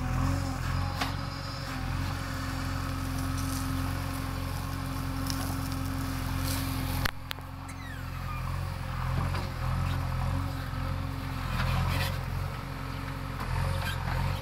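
Diesel engine of a JCB backhoe loader running steadily at a constant speed, with a sudden break about halfway through.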